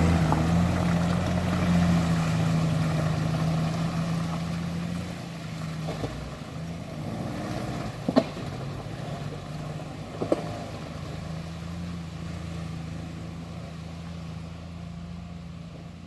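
4x4 vehicle engine running steadily at low revs, slowly fading. Two sharp knocks about eight seconds in and again about two seconds later.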